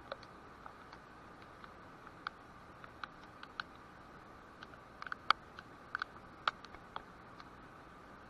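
Scattered raindrops ticking irregularly on a surface close to the microphone, over a faint steady hiss; the ticks come thicker and louder about five to six and a half seconds in.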